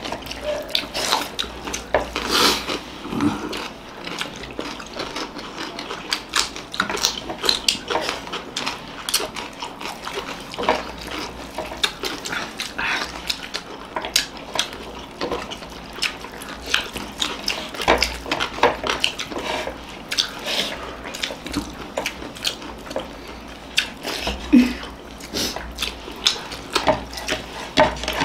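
Close-up eating by hand: fingers mixing rice and egg curry on plates, with chewing and mouth smacks, heard as a quick, irregular run of small wet clicks and smacks.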